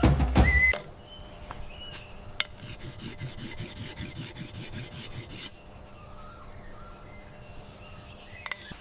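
Drumming cuts off within the first second. Then a rhythmic rasping scrape, about five strokes a second, runs for about three seconds, with faint bird chirps.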